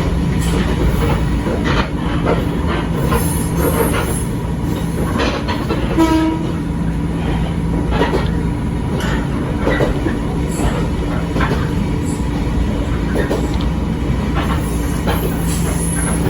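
Electric railcar of the Echizen Railway 5001 series running along the line, heard on board: a steady motor hum over wheel rumble, with irregular clicks of wheels over rail joints.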